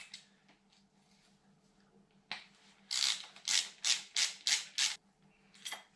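Ratchet wrench undoing a bolt on an engine: one short rasp about two seconds in, then about six quick raspy ratcheting strokes at roughly three a second, and one more near the end.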